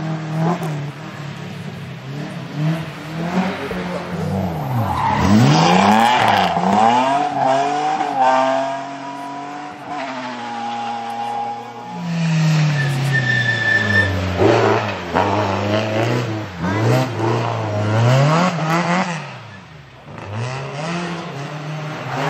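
Rally car engine revving hard, its pitch climbing and dropping again and again as it is driven through the gears, with tyre noise from sliding on the stage.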